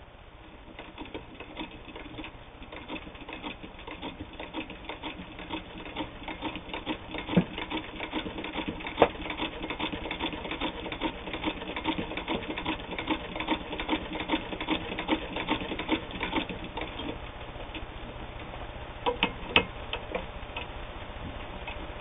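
Singer 15K all-metal sewing machine, with no motor, driven by hand at the handwheel and stitching through flannel: a rapid, even clicking of the needle and feed. The stitching stops about three-quarters of the way through, and a few sharper clicks follow.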